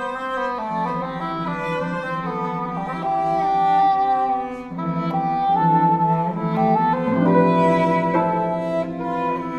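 Chamber trio music for oboe, harp and cello: the cello holds long, low bowed notes beneath a sustained, higher melody line.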